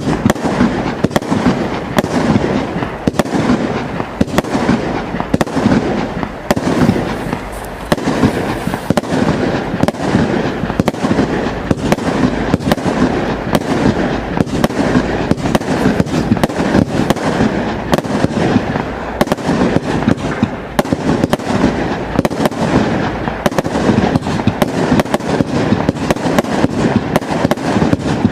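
Absolute Fireworks 'Noisy Neighbours' firework barrage firing continuously, a rapid, unbroken stream of bangs and crackles.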